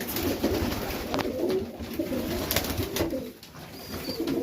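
Several Serbian highflyer pigeons cooing over one another in a loft, with a few sharp clicks among the coos.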